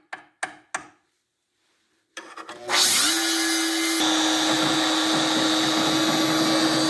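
A few light clicks, then an electric power tool's motor spins up about two and a half seconds in and runs loud and steady at a fixed speed, with a slight step up in its sound about a second later.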